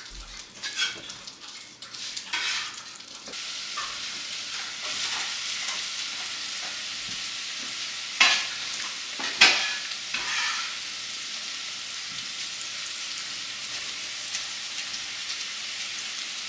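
Cubed apples going into melted butter in a pot and frying, with a spoon stirring them. The scraping and clatter give way about three seconds in to a steady sizzle. Two sharp knocks of the utensil on the pot stand out near the middle.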